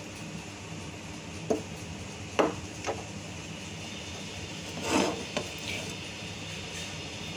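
Egg-filled bread slice frying gently in ghee in a non-stick frying pan: a faint steady sizzle over a low hum, broken by a few short knocks and rubs, the loudest just past the middle.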